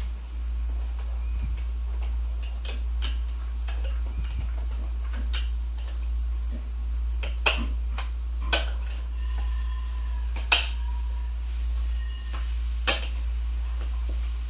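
Small plastic toy pieces clicking and tapping as they are handled and fitted into place, with four sharper clicks in the second half, over a steady low hum.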